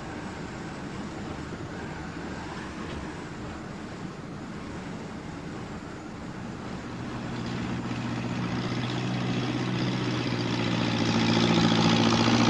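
Wind blowing steadily, then from about halfway a heavy machine's engine comes in and grows steadily louder as the forestry log lifter approaches.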